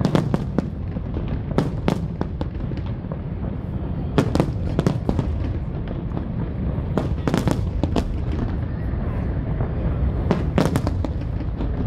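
Aerial fireworks display: a continuous low rumble of shell bursts, broken by clusters of sharp cracks every few seconds, the loudest bang about four seconds in.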